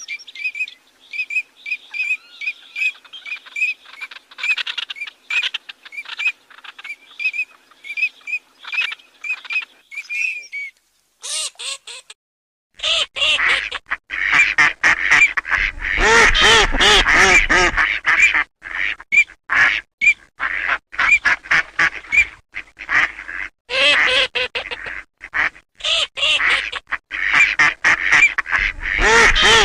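Eurasian teal calling: a steady run of short, high piping notes, two or three a second. After a brief pause about ten seconds in, a louder, denser run of nasal quacking calls follows.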